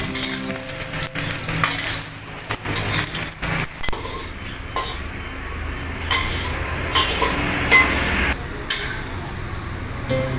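Food sizzling in hot oil in a metal wok, with a metal spatula scraping and clinking against the pan in frequent sharp knocks as it is stirred. Background music plays near the start.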